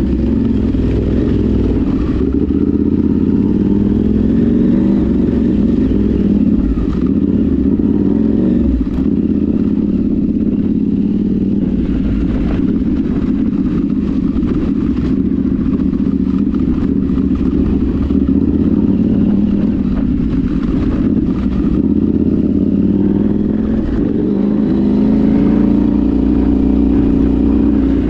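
Off-road vehicle engine running continuously under way, its pitch rising and falling as the throttle changes, with scattered knocks and rattles.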